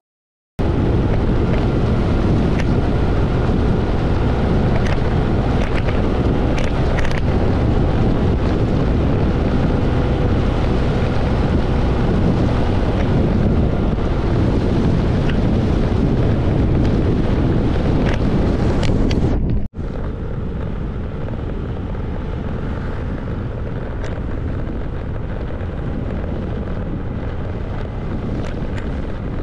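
Wind buffeting the microphone with road and engine noise while riding a scooter. It cuts out for an instant about two-thirds of the way through and carries on a little quieter.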